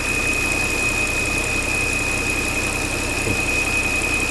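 Volvo XC90 3.2 inline-six idling with a steady high-pitched whistle from the crankcase ventilation (PCV) unit, the sign of a torn ventilation membrane.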